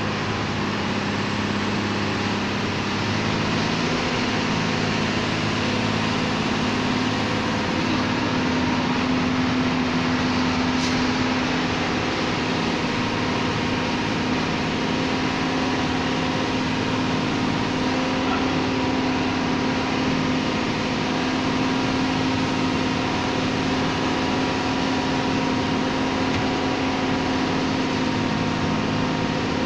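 Truck diesel engine pulling steadily in low gear up a climb, heard from inside the cab as a continuous drone with road noise; its pitch rises slightly about three seconds in.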